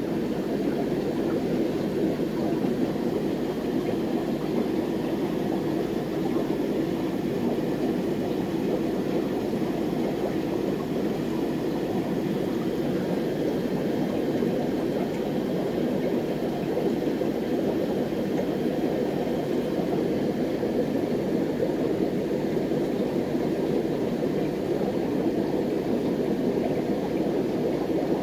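Steady bubbling and air noise from air-driven aquarium sponge filters, unbroken throughout.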